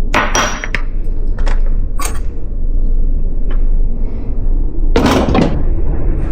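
Pots and utensils clattering in a few short knocks, the loudest a little after five seconds in, over a steady low rumble.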